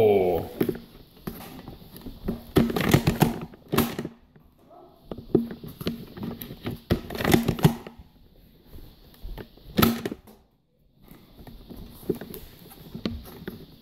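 Scattered clicks, knocks and shuffling from players moving about and handling Nerf foam-dart blasters, with one sharp knock about ten seconds in.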